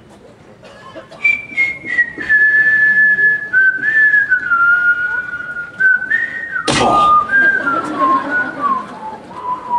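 A person whistling a slow tune whose notes step steadily downward in pitch. About two-thirds of the way through there is a sudden loud noise, and the whistling carries on at a lower pitch after it.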